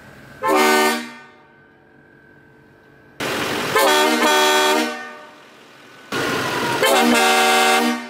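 Kleinn train horn kit on a truck, run from an onboard air system, sounding three loud blasts of a multi-tone chord. The first is short, about half a second in, and the next two each last about a second and a half.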